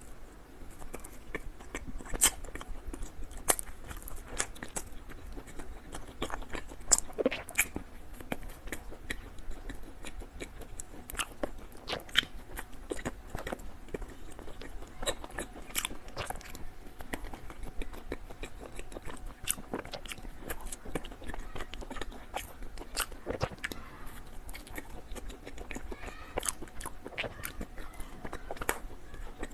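Close-miked eating sounds: biting into and chewing a small packaged bread roll, with irregular sharp clicks and little crunches.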